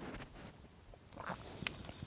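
A person biting and chewing a crunchy cookie: a few crisp crunches.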